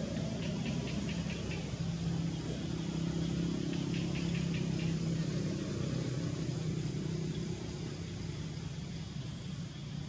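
A steady engine hum, swelling a little in the middle. Two short runs of quick, high chirps sound over it, near the start and about four seconds in.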